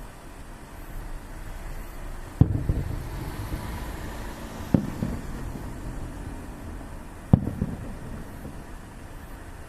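Three fireworks shells bursting, sharp bangs about two and a half seconds apart, each followed by a low rumbling echo, over a steady low background rumble.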